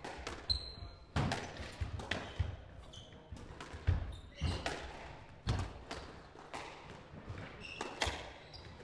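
Squash rally: the ball struck by rackets and smacking off the court walls, sharp impacts every half second to second and a half. Short high squeaks of players' shoes on the wooden court floor come between the hits.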